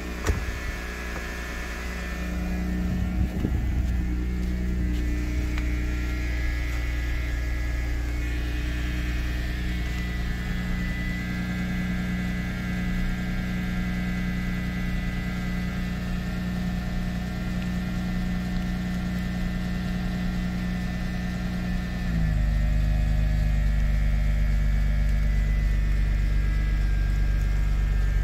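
Mercedes-Benz W140 S320's 3.2-litre straight-six idling steadily at its tailpipe soon after a cold start in freezing weather. About three-quarters of the way through, the idle drops a little and the sound grows louder.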